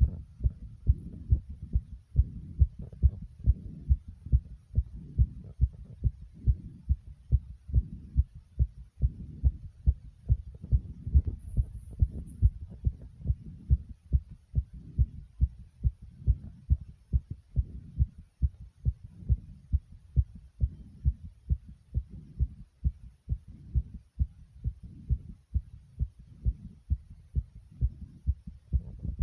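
A person's heart beating fast and strong after jumping jacks: an even run of low, deep thumps, about two a second.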